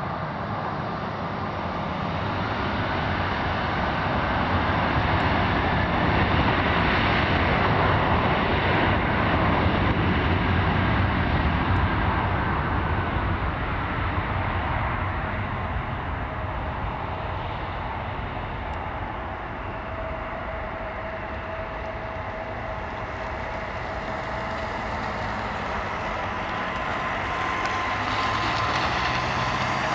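Embraer 195 airliner's two GE CF34-10E turbofan engines at takeoff power during the takeoff roll. It is a jet roar with a fan whine that glides slowly in pitch. The roar swells over the first ten seconds, eases off, and swells again near the end as the jet moves away down the runway.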